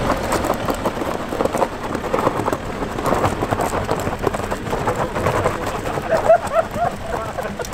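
Metal snow chains on a car tyre rattling and clinking as they are fitted and joined: a dense run of small irregular clicks and scrapes.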